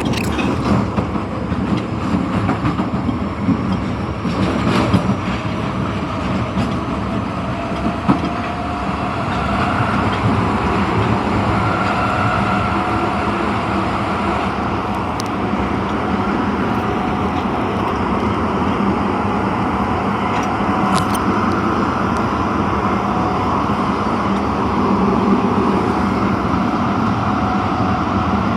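Osaka Metro Tanimachi Line 22-series subway car running, a steady rumble of wheels on rail with a high-pitched running sound. A faint whine rises in pitch about a third of the way in, then holds steady.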